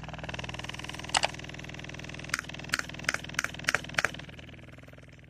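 Sound played back through a TPA3110 class-D amplifier under test: a steady buzzing tone with a run of sharp hits, one just over a second in and six more in quick succession between about two and four seconds in. The sound fades slightly near the end.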